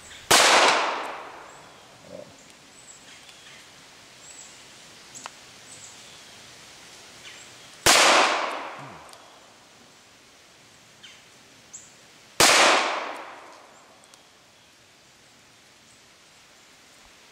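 Three single shots from a Taurus Model 94 stainless 9-shot revolver firing .22 Long Rifle, each a sharp crack followed by an echo that dies away over about a second. The first comes right at the start, the second about eight seconds in and the third about four and a half seconds after that.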